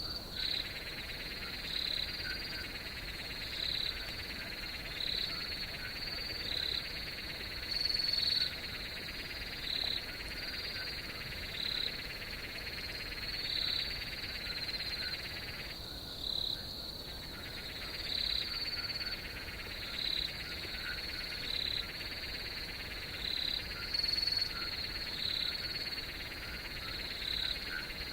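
Night chorus of frogs and insects: a steady high insect trill, with short calls repeating about once a second and a lower buzzing layer that stops briefly past the middle.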